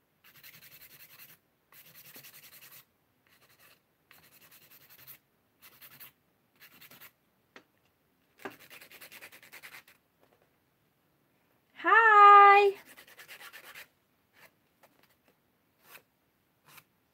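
Nail file rubbing back and forth over acrylic stiletto nails, in short passages of strokes with gaps between them. About twelve seconds in, a short, loud pitched vocal sound rises and then holds, louder than anything else here.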